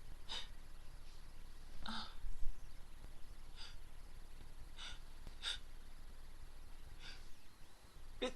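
A woman's short breaths and sniffs between sneezes, about one every second, the loudest about two seconds in, building toward the next sneeze with a quick intake of breath just before the end.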